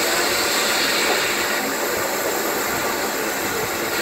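Standing steam locomotive giving off a steady hiss of steam.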